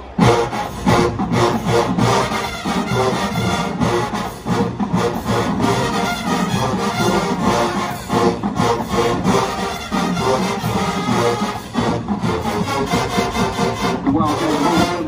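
Marching band playing, loud brass over a driving drumline, striking up suddenly at the start.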